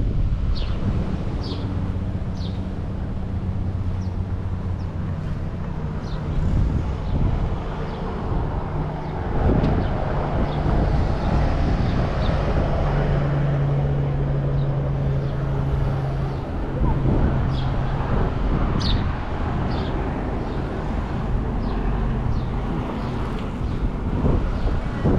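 Outdoor street ambience: wind on the microphone over a steady hum of passing vehicle engines, with faint voices and a few short high chirps.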